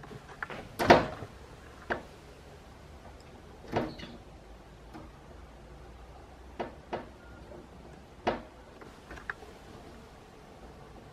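A grey squirrel landing on and scrambling about a clear suction-cup feeder stuck to window glass: a string of sharp knocks and thumps against the window, the loudest about a second in, then half a dozen more scattered over the next eight seconds.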